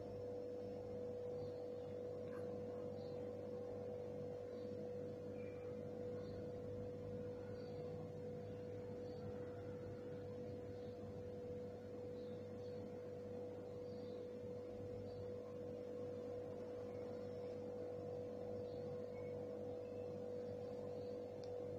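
A steady, unchanging hum: one pure mid-pitched tone with a fainter low hum beneath it, holding level throughout.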